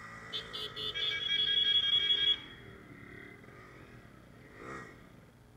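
Motorcycle horn: a few quick toots, then a held honk of nearly a second and a half that cuts off sharply. Underneath, a motorcycle engine runs low.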